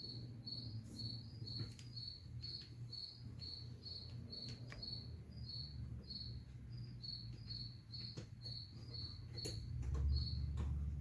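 A cricket chirping steadily, about two short, high chirps a second, with a few faint clicks and a low hum beneath.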